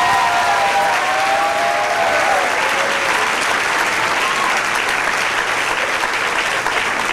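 Audience applauding steadily, with a few voices in the crowd calling out over the first couple of seconds.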